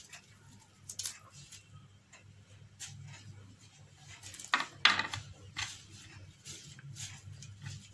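Crisp lettuce leaves rustling and crackling as they are handled and torn on a wooden chopping board, with scattered light clicks. About halfway through there is a louder, brief clatter, as a large kitchen knife is set down on the board.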